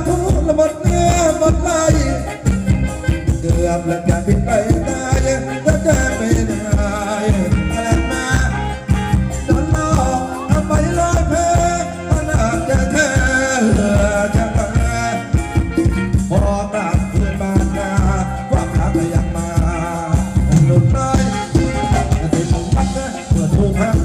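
Thai ramwong dance music played by a band: a singer over a steady, driving drum beat.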